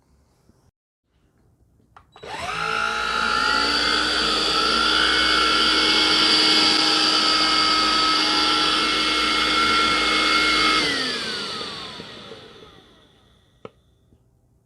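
Black+Decker PowerSeries Extreme 18V cordless vacuum switched on with a click about two seconds in. Its motor rises to a steady whine and runs for about eight seconds, then it is switched off and winds down, falling in pitch. A sharp click comes near the end.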